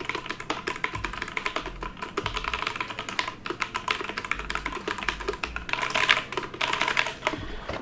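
Fast, irregular clatter of small plastic clicks, like keys being pressed on a mechanical keyboard.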